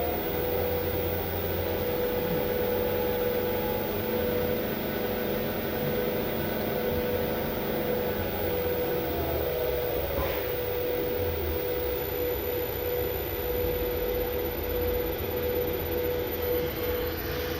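Fuji FRENIC-Mega inverter running on a test after repair, driving a motor: a steady whirring hum with one constant mid-pitched tone over a low rumble.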